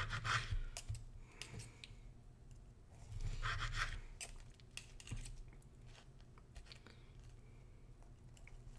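Cutlery cutting cooked sausage into small pieces, making scattered quiet taps and clicks against the plate, with a short scraping sound about three and a half seconds in.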